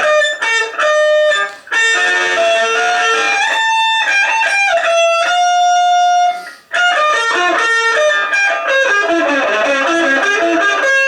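Electric guitar played loud through a small battery-powered Marshall mini amp on its overdrive setting: single-note lead phrases and a few long held notes, thin in the bass. The playing breaks off briefly a little past halfway.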